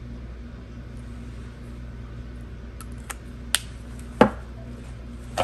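Small makeup packages being handled on a table: a few light clicks and taps, the loudest about four seconds in, over a steady low room hum.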